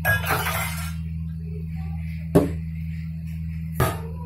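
Thick kadhi slowly boiling in a steel kadhai, two bubbles bursting with sharp plops about a second and a half apart, over a steady low hum. A brief noisy rush comes at the start.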